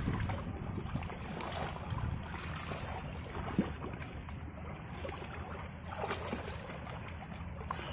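Water splashing and sloshing in a shallow stream as a group of Komodo dragons tug at a carcass, with a short thud about three and a half seconds in. Wind rumbles on the microphone throughout.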